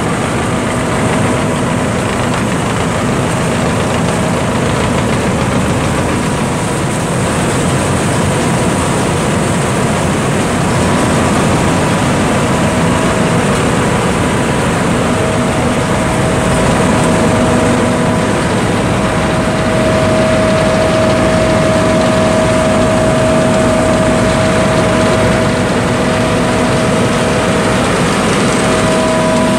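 2012 John Deere S660 STS combine's diesel engine and machinery running steadily, with a steady whine that grows stronger about halfway through.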